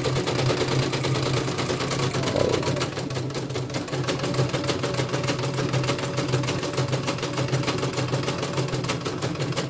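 CNY portable embroidery machine stitching with its covers off, the needle bar clattering in a fast, even rhythm over a steady motor hum. This is a test run after a full strip-down and re-lubrication.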